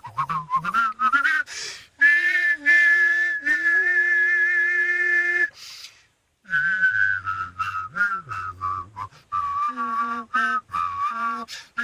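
A person whistling a slow melody while humming a lower line at the same time. One long held note runs from about two seconds in, followed by a brief break, then a run of shorter notes.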